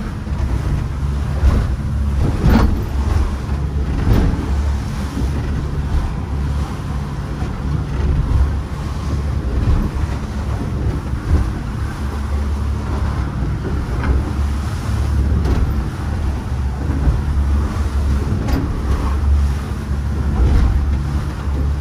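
A catamaran's engine running steadily under way, a constant low hum. Wind buffets the microphone and water splashes now and then.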